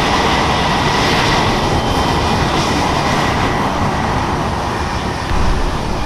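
F-22 Raptor's twin Pratt & Whitney F119 turbofan engines running at ground idle: a steady jet roar with a thin high whine.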